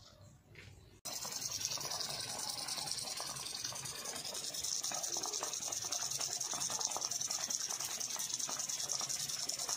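A steady jet of water spraying and splashing onto leafy garden plants, starting suddenly about a second in after near silence.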